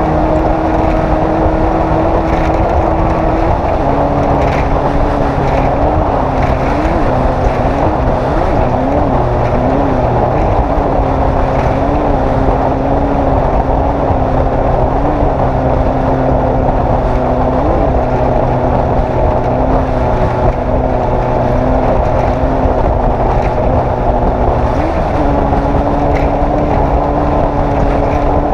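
Off-road race vehicle's engine running continuously with wind and road noise. Its pitch drops a few seconds in, blips up briefly several times in the middle, and settles back higher near the end.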